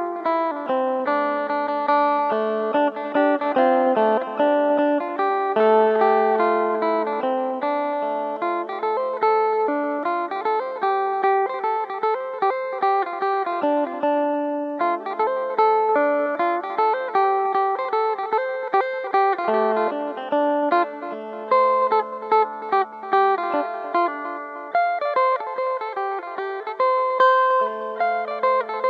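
Two-string phin, the Isan plucked lute, playing a fast picked melody over a steady drone note on its other string. The playing breaks off briefly about halfway through.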